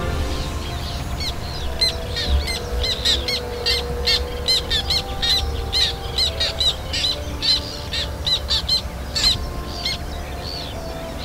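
Black terns calling as they fly: a rapid series of short, sharp calls, several a second, thinning out near the end.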